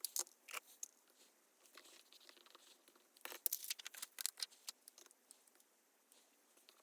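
Paper and sticker sheets being handled at close range: crinkly rustles, small taps and tearing sounds in two short flurries, one at the start and a longer one about three seconds in.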